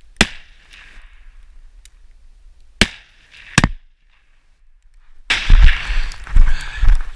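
Three rifle shots at a caribou: one just after the start, then two more close together about three seconds in. Loud rumbling noise with thumps follows from about five seconds in.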